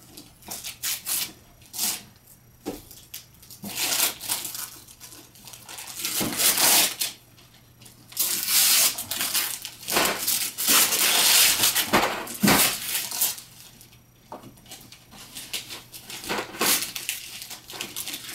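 Gift wrapping paper being ripped off presents and crumpled, in irregular rips of varying length, the longest and loudest about ten to thirteen seconds in.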